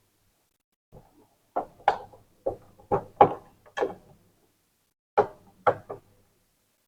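Plastic printer casing parts being handled and knocked into place: a run of sharp, irregular clacks and knocks, then two or three more a little later.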